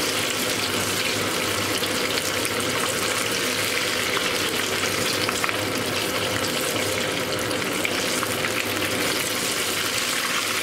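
Hot oil sizzling and bubbling steadily in a small saucepan as pieces of breaded tapas deep-fry, a dense continuous crackle.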